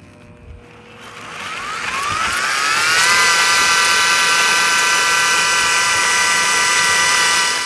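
A power tool's electric motor spinning up, its whine rising quickly in pitch over about two seconds, then running at a steady high speed before cutting off at the end.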